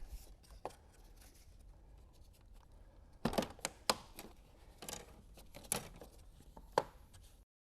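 Sharp plastic clicks and knocks from a pry tool working the plastic clips that hold the grille in the bumper cover: a quick cluster about three seconds in, then a few single clicks.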